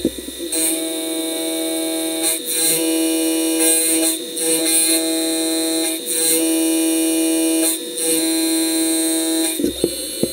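CNC mill's end mill cutting titanium under flood coolant: a loud, steady pitched whine from the spinning cutter that drops out briefly every one to two seconds as the tool moves between passes.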